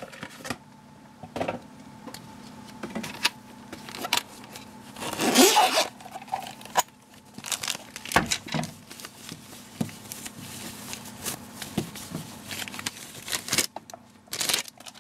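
Zipper of a black hard-shell sunglasses case being pulled open, amid clicks and rustles of handling the case and the sunglasses; the loudest rasp comes about five seconds in.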